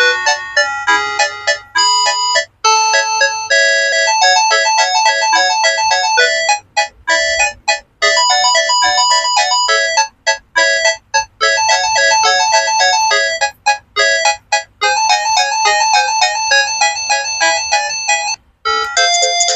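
Sanex SC-7090i flip phone playing polyphonic ringtones through its loudspeaker, rendered by its Qualcomm CMX synthesizer: bright electronic chiming melodies of quick stepped notes with short rests. The tune stops briefly about two and a half seconds in and again near the end, where another ringtone starts.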